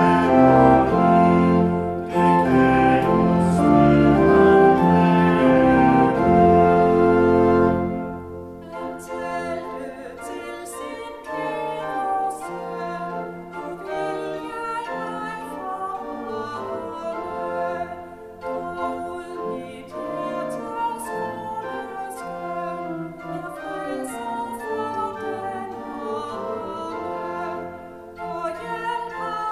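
A small group of singers sings a hymn in Danish, accompanied by church organ. It is loud and full for about the first eight seconds, then continues more softly.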